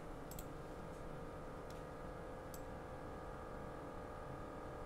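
Quiet room tone with a steady electrical or fan hum, and a few faint computer mouse clicks in the first few seconds as a face of the model is selected.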